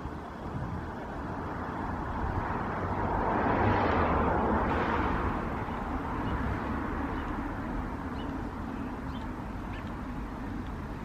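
Wind rumbling on the microphone outdoors, with a rushing noise that swells to a peak about four seconds in and then fades.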